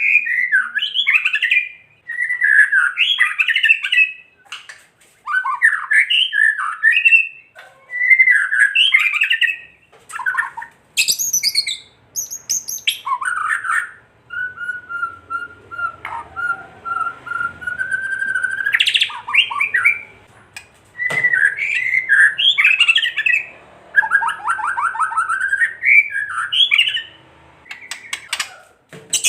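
White-rumped shama giving harsh rattling 'kretek' calls in short bursts every second or two, with a few high squeaky notes and one long steady whistle in the middle. This is the agitated, challenging call used to provoke other shamas.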